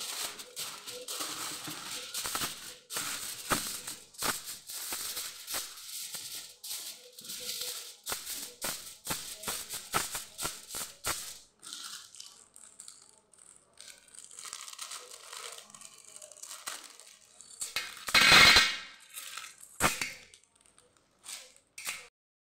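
Aluminium foil crinkling and crackling as it is folded and pressed around a round baking tray, dense for about the first eleven seconds and then sparser, with one brief louder burst near the end.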